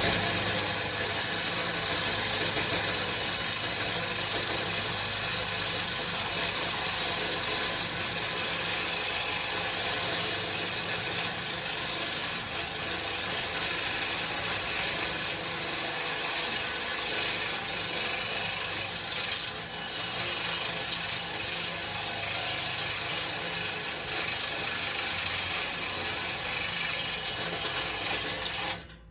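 A loud power tool running continuously against metal for nearly half a minute, then stopping abruptly just before the end.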